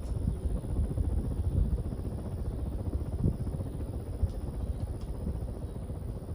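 Airflow from a running Solo Encore DC ceiling fan buffeting the microphone: a low, gusting rumble that swells and dips unevenly, with a few faint clicks.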